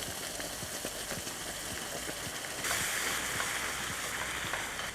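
Onions, garlic and spices frying in oil in a pan, sizzling as natural yogurt goes in, with small scattered clicks. The sizzle grows louder and brighter a little over halfway through.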